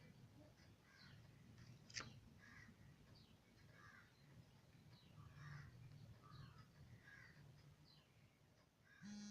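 Near silence with faint bird calls repeating every second or so, and a single sharp click about two seconds in.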